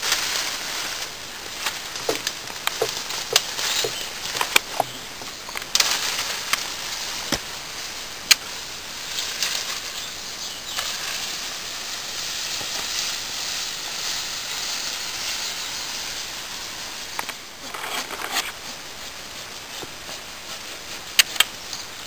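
Leaves and branches rustling as they are pushed and handled, with scattered sharp snaps and cracks of twigs; the sharpest snap comes about eight seconds in.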